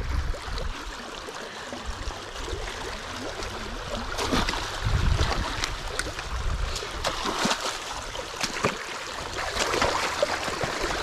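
Creek water rushing and gurgling through a breach dug in a beaver dam as the backed-up pond drains. From about four seconds in, a rake splashes and stirs in the water and mud.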